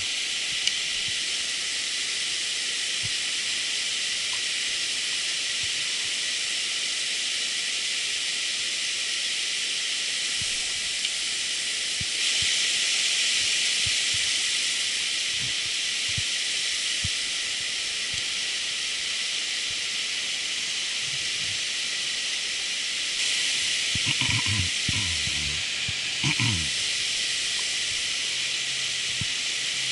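Steady rushing of river water pouring over a small weir of rocks. A few short, low knocks and rustles come near the end.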